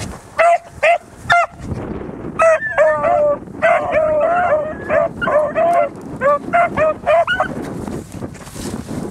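Beagles baying in short, pitched yelps: a few at first, then a quick overlapping run of them from about two and a half seconds in, easing off near the end. It is the sound of hounds giving tongue while working a scent trail in the grass.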